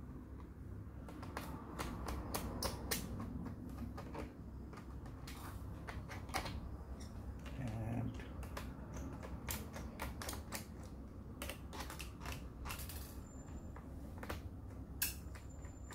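Irregular sharp clicks and taps as small screws are worked out of the plastic screen bezel of a Toshiba Satellite C660 laptop and handled.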